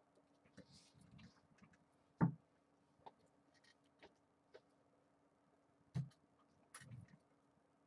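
Quiet, scattered taps and knocks of trading cards and packs being handled on a tabletop, the loudest about two seconds in and again about six seconds in, with a few lighter clicks between. A faint steady hum runs underneath.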